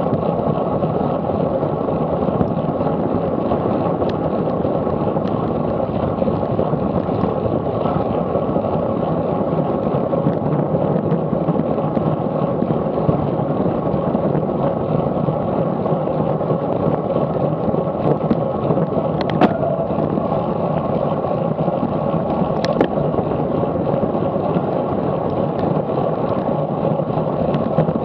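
Steady wind rush on the microphone of an action camera on a road bicycle ridden at about 23 mph, with tyre noise on the tarmac. Two sharp clicks come about two-thirds of the way through.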